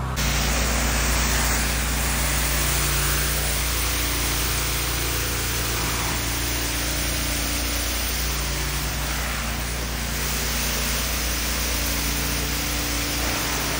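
Pressure washer running steadily: high-pressure water from a twin-nozzle wand hissing against concrete, over a steady low hum.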